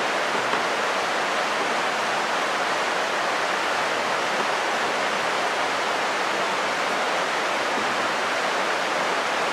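Steady rain falling, an even hiss without break.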